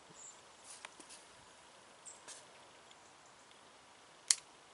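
Faint ticks and small high squeaks from handling a Sänger Iron Claw baitcasting reel and rod, then one sharp, loud click a little over four seconds in.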